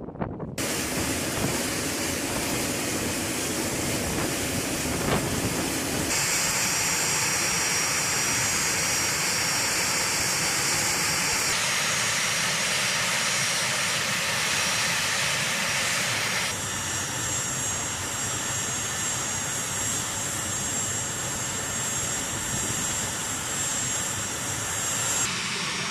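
A-10C Thunderbolt II's twin TF34 turbofan engines running, a loud steady jet noise with a high whine, its tone shifting abruptly several times.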